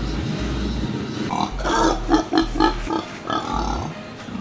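A domestic pig grunting: a quick run of short grunts, about four or five a second, lasting a couple of seconds, after a steady hiss from a gas burner at the start.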